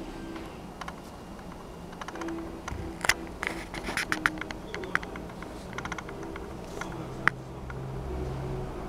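Small dog growling low and grumbling, a frustrated growl at being refused a treat, deepening and steadier from about six seconds in. Sharp clicks and rustles from about three to five seconds in as she shifts about.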